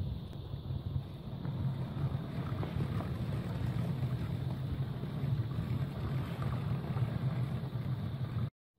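LEGO trains running past on plastic track: the electric train motors and gearing running with a steady low hum, and the wheels rolling over the track with faint clicks. The sound cuts off suddenly near the end.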